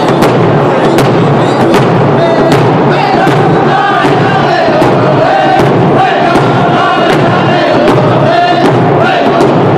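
Round dance song: a group of men singing together while beating rawhide hand drums in a steady beat, about two strokes a second.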